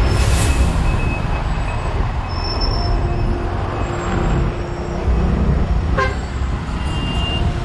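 Road traffic heard from a moving motorcycle taxi: a steady low rumble of engines and road noise, with a vehicle horn sounding briefly about three seconds in.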